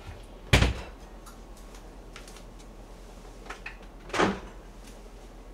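Kitchen handling sounds: a dull thump about half a second in, a few light clicks, then a second knock about four seconds in, as a cupboard door, lid or dish is opened, closed or set down while the cook serves up.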